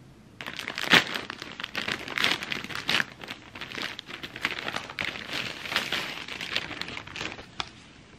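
Plastic poly mailer bag crinkling and tearing as it is ripped open and handled, a dense run of crackly rustles with the loudest rip about a second in.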